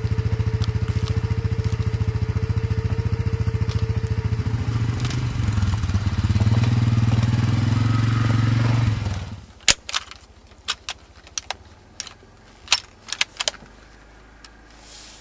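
ATV engine running, picking up revs about halfway through, then cutting off abruptly. After that comes a string of sharp clicks and knocks as a scoped rifle is handled.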